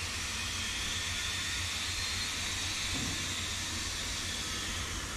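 Steam locomotive C58 363 giving off a steady hiss of escaping steam.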